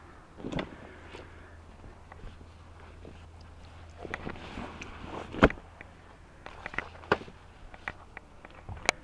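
Irregular handling knocks and clicks, with a cluster of them after about four seconds and one loud knock about five and a half seconds in, over a faint steady low hum.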